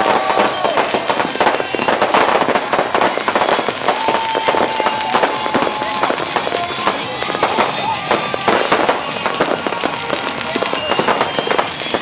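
Fireworks and firecrackers going off in a dense, continuous crackle of bangs. A steady whistle-like tone sounds for about two seconds near the middle.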